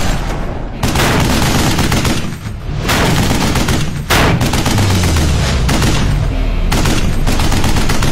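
Film sound-effect gunfire: rapid, dense volleys of gunshots with a short lull about two and a half seconds in, and a low rumble underneath in the second half.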